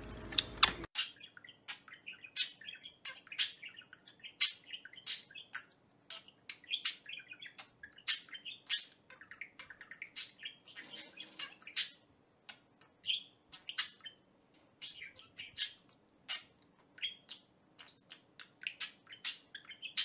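Budgerigar chirping and warbling: irregular short, sharp chirps, a few a second, over softer chatter.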